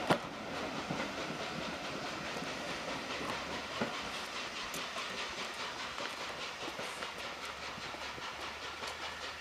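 Heritage-railway passenger coaches pulling away and drawing off down the line, their wheels clacking in a steady rhythm over rail joints and pointwork, with a sharp clack just at the start. The sound slowly fades as the train recedes.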